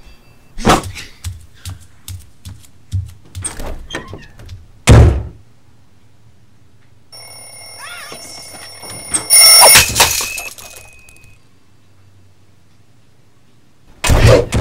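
Sound effects from an animated cartoon: a string of light knocks and thuds with a loud thump about five seconds in, then a ringing tone lasting about four seconds, and another heavy thump near the end.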